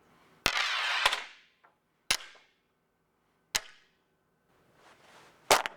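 A series of sharp cracks, like cap-gun or gunshot effects. The first, about half a second in, is followed by a hissing rush. Single cracks follow about two and three and a half seconds in, and a rising hiss leads into a loud double crack near the end.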